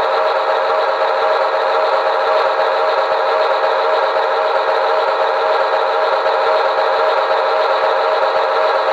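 Diesel locomotive engine sound effect from a QSI Maxx Traxx model-train sound unit, running steadily with a fast, even throb. It has a thin, small-speaker tone with no deep bass.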